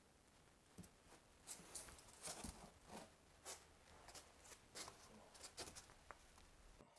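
Near silence with faint, scattered scrapes and taps as a foam shower curb is handled and pressed down into thinset.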